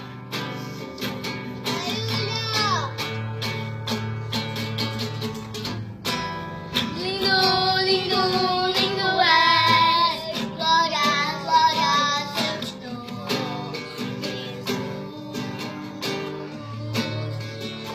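Music: a child singing over plucked acoustic guitar, the voice strongest from about seven seconds in.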